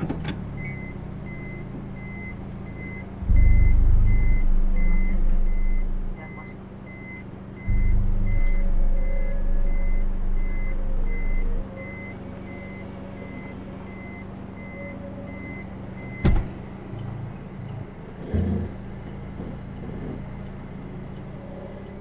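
Inside the cabin of a Suzuki Swift Sport ZC33S, its 1.4-litre K14C turbo four idles while the reverse-gear warning beeper sounds repeatedly for about sixteen seconds and stops with a click. Twice, for three to four seconds each, the engine and HKS Hi-Power SPEC-L muffler rise into a deep, loud drone as the car backs up.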